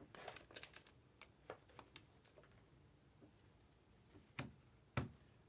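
Quiet handling of 2023 Topps Chrome baseball cards: a quick run of soft card clicks and rustles, then two sharper taps near the end.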